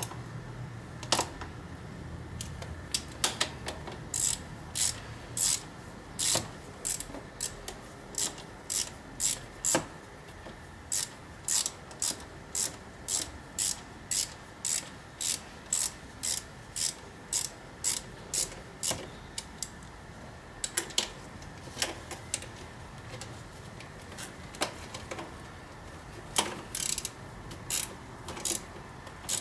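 Hand ratchet turning throttle-body mounting bolts: a long series of sharp pawl clicks, a little under two a second, with a short pause about two-thirds of the way through.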